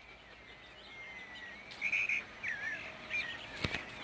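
Small birds chirping and twittering, short whistled notes that glide and wobble in pitch, loudest about two seconds in. A single sharp click sounds about three and a half seconds in.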